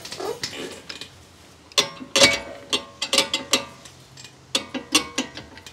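Metal hand tools clanking and clinking: a run of sharp metallic knocks with a ringing tone, starting about two seconds in.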